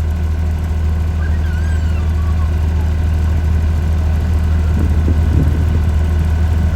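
Steady, loud drone of the Catalina flying boat's twin radial piston engines.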